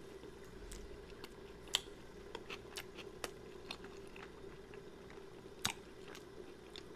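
Close-up chewing of a chili dog: soft wet mouth clicks and smacks scattered throughout, the sharpest near the end, over a faint steady hum.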